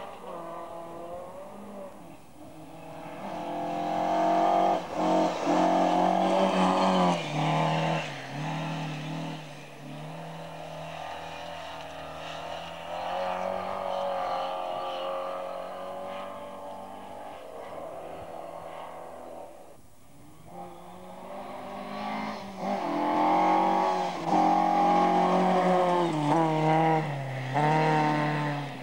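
Rally cars at full throttle on a gravel special stage, passing one after another. The engines rev high and drop back with each gear change. The sound is loudest twice, as two cars go by.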